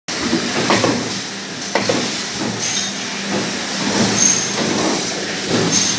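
Stamping power presses running on a factory floor: a steady machine hum with knocks from the press strokes and short hisses of air.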